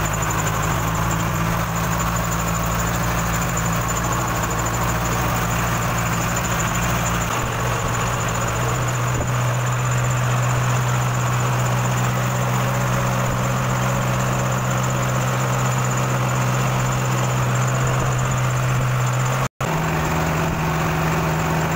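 Engine of a motorized outrigger boat running steadily under way, a constant low drone over a steady hiss. It cuts out for an instant near the end.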